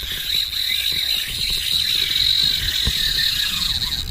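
Spinning reel's drag buzzing steadily at a high pitch as a hooked tarpon pulls line off it.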